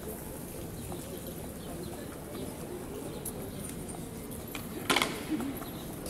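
Outdoor café-terrace ambience in a city square: a steady low murmur of diners' voices, with a sharp clack about five seconds in and a smaller one just after.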